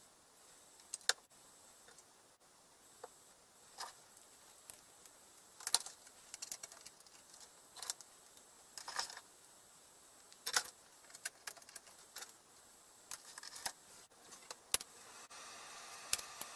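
Scattered light clicks and clacks of test gear being handled: a clamp meter, test leads and oscilloscope probes picked up and set down on a bench.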